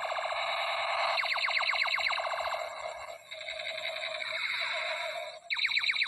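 Battery-powered Iron Man toy pistol playing its electronic shooting sound effect. A warbling electronic tone alternates with rapid runs of falling zaps, about ten a second, once in the first half and again near the end.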